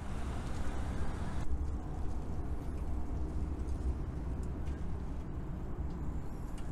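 Steady road traffic on a busy bridge, a low rumble under a light hiss; the brighter hiss drops away about a second and a half in.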